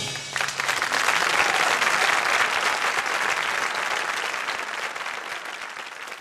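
Audience applauding as a sung choral piece ends, the applause breaking out just after the last note and slowly fading.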